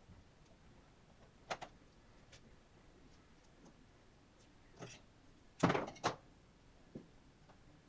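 Laptop parts and tools being handled during disassembly: a few scattered clicks and light knocks, with the loudest, a quick double knock, a little past halfway.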